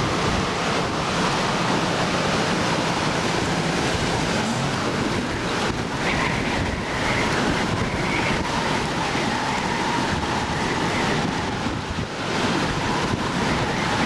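Strong wind rushing steadily over the microphone during a tornado chase, with a faint steady whine in the background.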